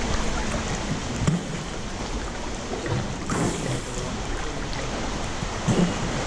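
Seawater sloshing and lapping against a camera held half-submerged at the waterline, with a few small splashes.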